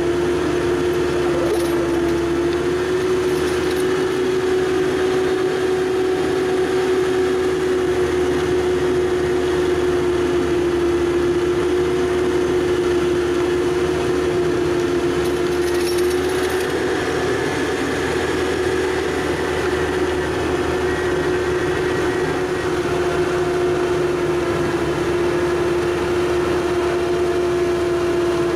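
ASV RC100 compact track loader running at steady working throttle and driving an Erskine ES2410XL skid-steer snowblower as it throws snow. The machine makes a steady, loud whine over its engine noise.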